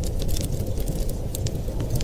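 Wood fire crackling in a fireplace: many small sharp pops and snaps over a steady low rumble.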